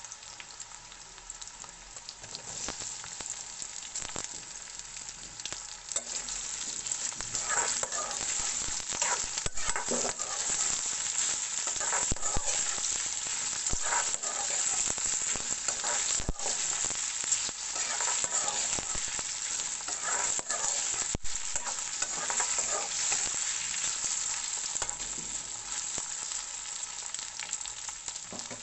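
Aloo bhujia frying in hot oil in a pan: a steady sizzle that grows louder about six seconds in, with a spatula stirring and scraping against the pan again and again.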